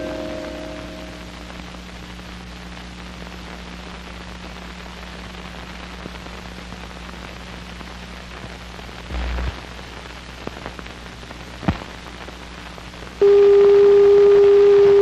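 A bell-like chord dies away at the start, leaving a steady tape hiss with a low mains hum; about nine seconds in there is a short low thump, then a sharp click, and about two seconds before the end a loud steady tone begins abruptly and holds.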